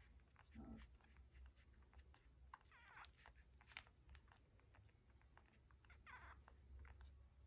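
Newborn dachshund puppies nursing: faint, rapid wet suckling clicks, with a few short, high puppy squeaks, one about three seconds in and another around six seconds.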